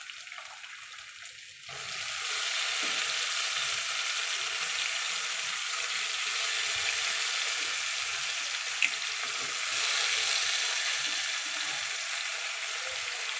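Onions frying in hot oil in a metal pan: a quiet sizzle that jumps suddenly louder about two seconds in, as chopped flat beans go into the oil, then sizzles on steadily. There is one sharp click about nine seconds in.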